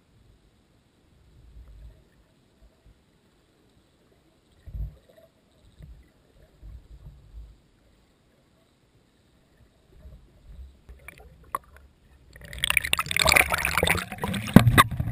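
Underwater audio from a GoPro in its waterproof housing: mostly quiet, with a few faint low thumps. About twelve seconds in, loud splashing and sloshing water starts as the camera comes up to the surface beside an inflatable kayak.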